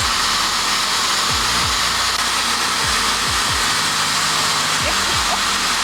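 Steady rush of air from the lining rig's blower pushing hot air out through the freshly cured blue-light pipe liner so it can cool and set. Underneath, a low sound falls in pitch again and again.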